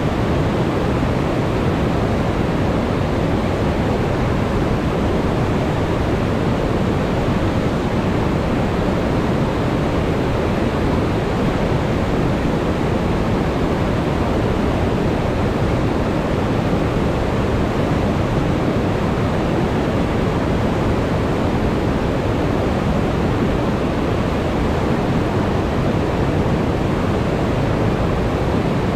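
River rapids and water pouring over a dam spillway: a loud, steady, deep rush of whitewater over rocks, unchanging throughout.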